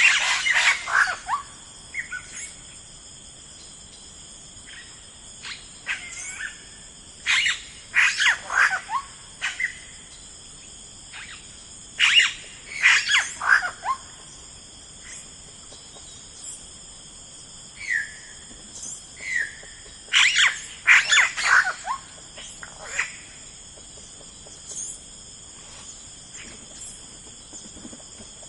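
Songbirds singing in short bursts of quick, falling notes, with a few single sliding calls in between, over a steady high-pitched insect drone.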